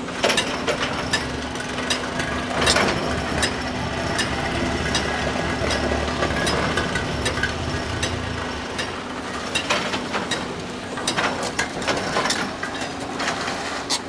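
SEKO SVR600 excavator-mounted vibro ripper breaking rock: a steady, even hum over the excavator's engine, with frequent irregular sharp cracks and knocks of rock being struck and breaking.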